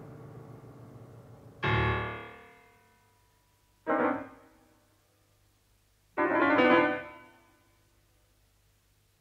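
Solo piano striking three loud chords about two seconds apart, the last held a little longer, each left to ring and die away; a low resonance is fading out before the first.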